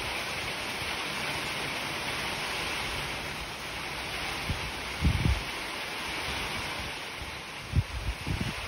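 Steady rain falling, an even hiss, with a few brief low thumps about five seconds in and again near the end.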